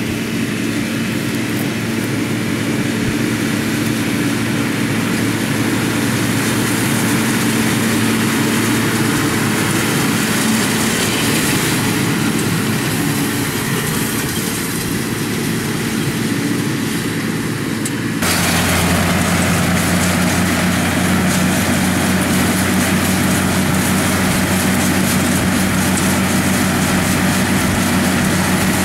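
Case tractor engine running steadily as it works the hay baler. About two-thirds of the way through, the sound changes abruptly to a deeper, slightly louder hum.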